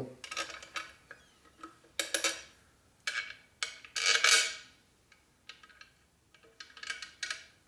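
Bolts and hand tools clinking and clanking against a steel workbench as they are picked up and set down, a string of sharp metallic clicks with short ringing, loudest about four seconds in.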